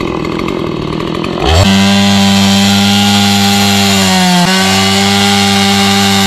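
Two-stroke chainsaw idling, then opened up to full throttle about a second and a half in, running high and steady as it cuts through a felled log. Its pitch dips briefly about four seconds in, then recovers.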